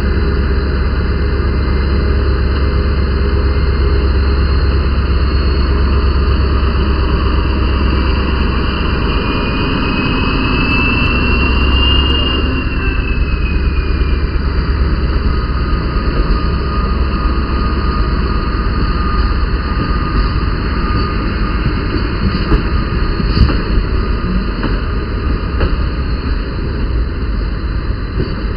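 SNCF BB 67400 diesel-electric locomotive pulling out under power, with a deep engine drone and a whine that rises and falls as it draws past, peaking about halfway through. After that the drone fades and the coaches roll by with a rattle and scattered clicks from the wheels.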